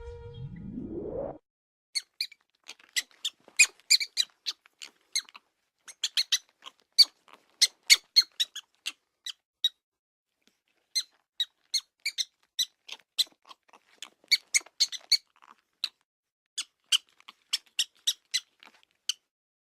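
A rising tone sweeps up in the first second and a half, then a prairie dog squeals: dozens of short, sharp, high squeaks in irregular runs, with pauses of about a second between some runs.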